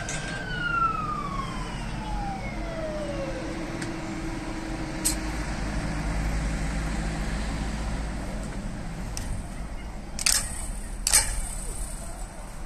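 Emergency vehicle siren wailing, then winding down in one long falling tone over the first few seconds. A low vehicle rumble goes on after it, with a few sharp knocks, the loudest two about 10 and 11 seconds in.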